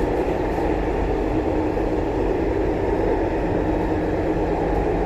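Chinese-made MTR Tuen Ma Line train running at steady speed, heard from inside the passenger car. There is an even rumble of wheels on rail with a faint steady hum running through it.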